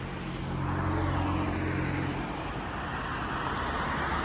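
Street traffic: a motor vehicle's steady engine hum for the first couple of seconds, then a broad rush of road noise as traffic goes by.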